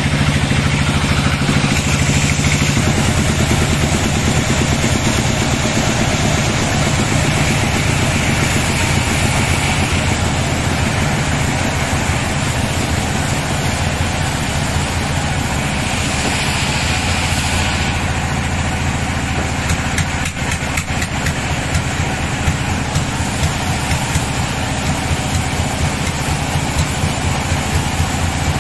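Sawmill engine running steadily at an even speed between cuts, with a few clacks about two-thirds of the way through.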